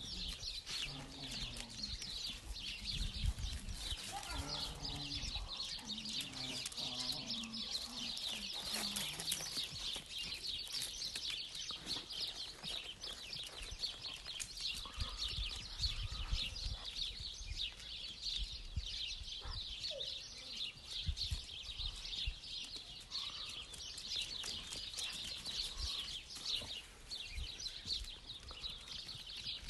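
Many small birds chirping in the background. Some lower animal calls are heard during the first nine seconds or so.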